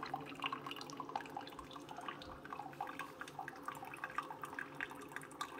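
A Mr. Coffee Pod + 10-Cup combo brewer's single-serve head running a cleansing brew with no K-Cup in: a thin stream of water trickles and spatters into a glass mug. Under it runs a low steady hum from the machine.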